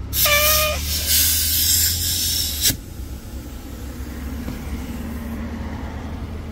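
A burst of air hissing loudly for about two and a half seconds, with a short whistle at the start, cut off with a click; a low steady hum carries on after it.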